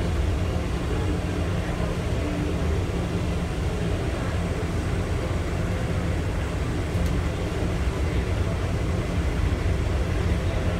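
IAH Skyway rubber-tyred automated people-mover car running along its concrete guideway, heard from inside the car: a steady low rumble with a hiss of tyre and running noise.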